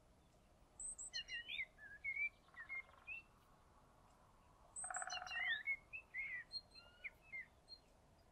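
Faint birdsong: two bouts of short whistled notes and buzzy trills from songbirds, starting about a second in and again about five seconds in, with a few quieter calls between.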